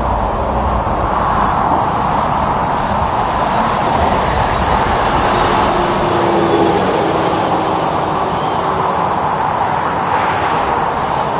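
Steady roadside traffic noise: tyres and engines of passing trucks and cars.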